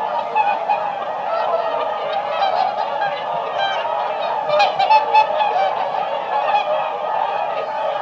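A flock of whooper swans calling together, a dense chorus of many overlapping bugling honks, with a few louder calls standing out about halfway through.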